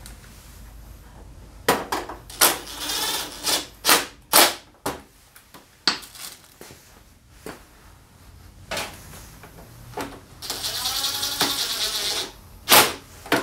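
Cordless drill-driver spinning screws on a motorcycle's plastic body cowls, in a short run early on and a steadier run of about two seconds near the end, among sharp knocks and clatter of the plastic panels and seat being handled.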